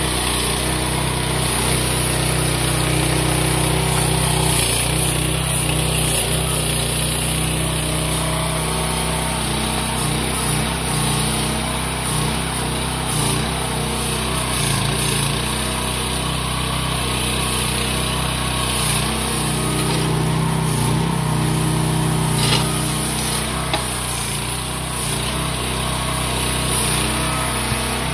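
Mini excavator's small engine running steadily while the boom and bucket dig, its note shifting slightly now and then as the hydraulics are worked.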